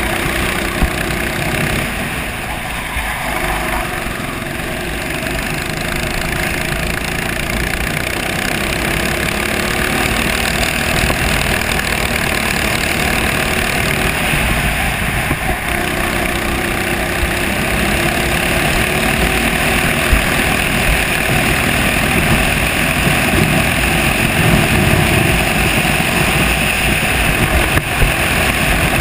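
Racing kart engine heard from the driver's seat, running hard around a circuit, its pitch rising and falling with the throttle through the corners.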